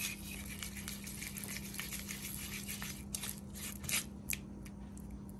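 A hand squishing and rubbing a wet spice paste of chilli powder, turmeric, vinegar, coconut oil and water around a bowl: soft, irregular squelches with a few sharper ticks past the middle, over a faint steady low hum.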